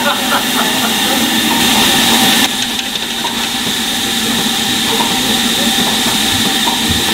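Steam hissing steadily from the standing LMS Royal Scot steam locomotive 46100, easing a little about two and a half seconds in.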